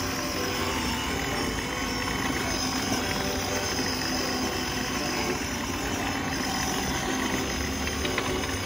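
Steady whir of a battery-powered ride-on toy car's electric motors, with its wheels rolling on a concrete footpath, under background music.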